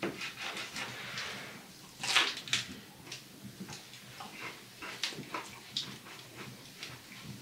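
A person eating fried bannock: chewing and small mouth noises, with irregular crackles as pieces are broken off the cakes, a louder cluster about two seconds in.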